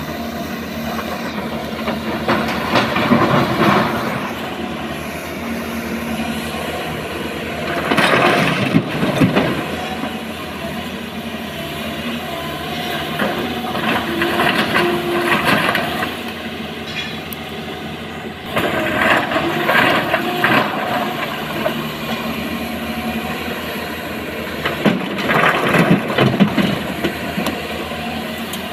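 SANY SY225 hydraulic excavator's diesel engine running steadily under load, with five loud bursts of rock clattering and scraping, about every five or six seconds, as the steel bucket digs into broken stone and tips loads into a dump truck's steel body.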